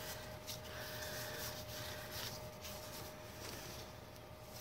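Faint rustling and sliding of paper sticker sheets handled and leafed through by hand, over a thin steady hum.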